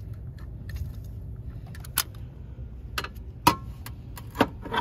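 Several sharp metallic clicks and clinks at uneven intervals, the loudest about three and a half seconds in, over a steady low background rumble.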